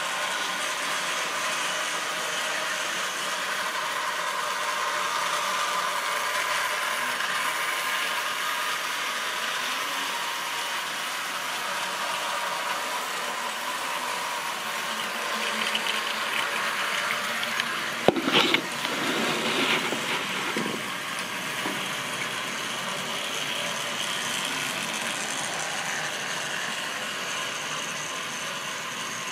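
Model railway trains running on the layout: the steady whir of small electric locomotive motors with wheels rattling along the track. A sharp click a little past halfway, followed by a few louder knocks.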